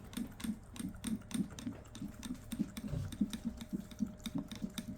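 Maltipoo puppy lapping water vigorously, a steady rhythm of about three laps a second with wet clicks of the tongue.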